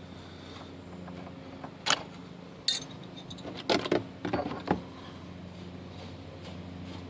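Sharp metallic clinks and rattles of tools and loose hardware being handled while taking apart a rusty trailer axle mounting: two single clinks about two seconds in, then a quick cluster around four seconds. A steady low hum runs underneath.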